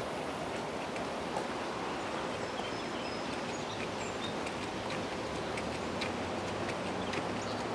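Steady outdoor background noise with a few faint, short bird chirps and scattered light clicks.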